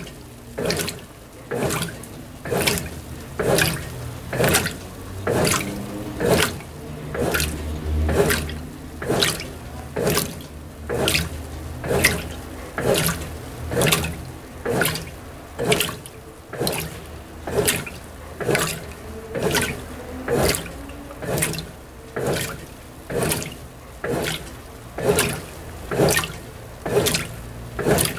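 Brastemp BWT12 top-loading washer agitating a load of delicates on its gentle delicate profile: water sloshes in the tub in even strokes, about four every three seconds, over a faint low motor hum.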